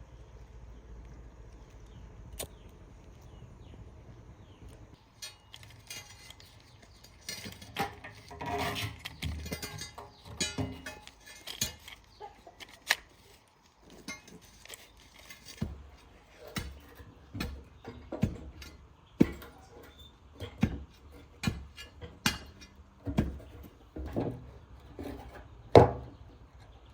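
Irregular clinks and knocks of metal tools and parts being handled, single sharp strikes a second or so apart, with a busier clatter about a third of the way in and the loudest knock near the end.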